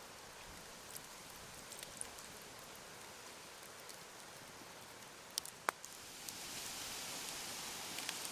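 Campfire crackling with scattered small pops and two sharp louder pops about five and a half seconds in. From about six seconds in, a louder steady hiss rises and holds.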